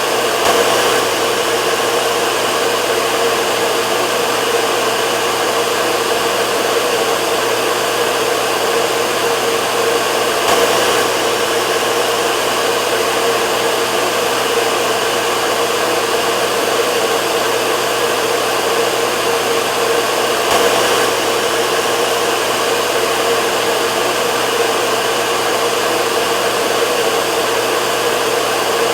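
Hair dryer running steadily: an even blowing rush with a constant motor hum, with a slight swell about every ten seconds.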